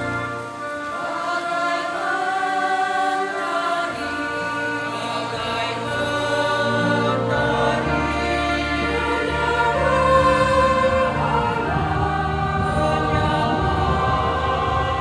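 Lay church choir of mixed voices singing in parts, with long held chords. Low notes join about halfway through and carry on under the upper voices.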